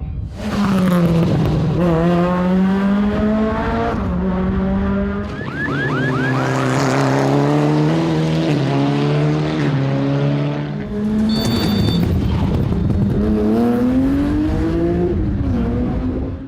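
Rally car engines revving hard through the gears, the pitch climbing and dropping back at each shift as the cars accelerate past. A brief high-pitched squeal comes in about eleven seconds in.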